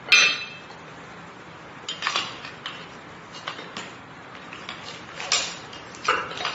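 Metal weight plates and bar being handled for weighing. One sharp metallic clank with a brief ring at the start, then a scattered series of lighter clinks and knocks.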